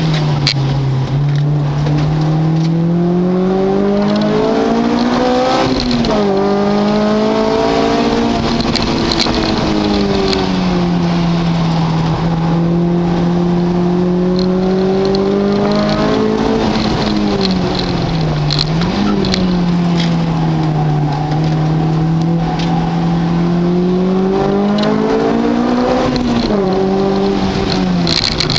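A car engine being driven hard on a test lap. Its pitch climbs steadily for several seconds and drops sharply three times, as it accelerates through the gears and then shifts or brakes.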